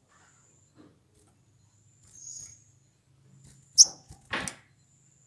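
Olive-backed sunbird giving short, high-pitched chirps: one about two seconds in, then a sharper, louder one near four seconds. A brief rustling burst follows, over a faint low hum.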